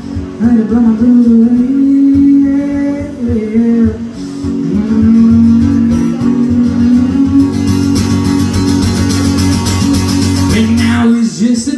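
Acoustic guitar strummed live with a man's voice singing over it. The strumming turns harder and brighter about eight seconds in, then breaks off shortly before the end.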